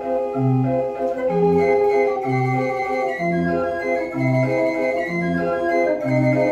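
Dutch street organ (draaiorgel) playing a tune: held pipe notes carry the melody over a steady bass that alternates between two notes about once a second.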